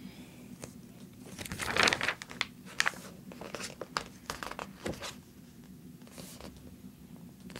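Pages of a thick glossy magazine being turned by hand: paper rustling and crinkling, loudest about two seconds in, with quick short rustles until about five seconds in, then softer handling.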